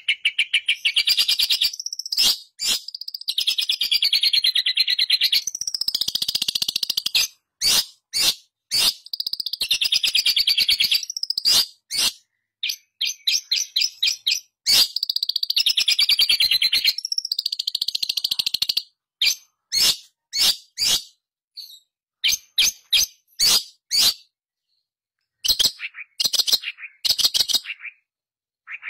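Long-tailed shrike (pentet) singing vigorously: long runs of very rapid chattering notes, each lasting a few seconds with short breaks between. After about two-thirds of the way through, the song breaks up into short phrases and single sharp calls with gaps.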